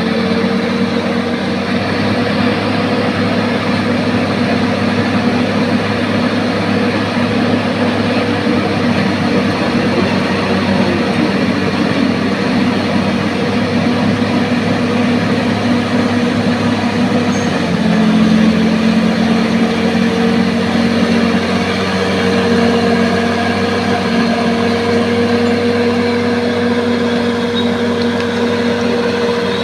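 Bulldozer's diesel engine running steadily. About 18 seconds in, its pitch dips briefly and comes back slightly higher.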